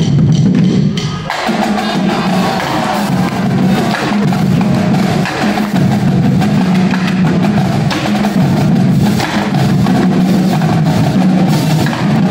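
A drumline playing together: bass drums, snare drums and tenor drums with cymbals, in a fast, dense rhythm.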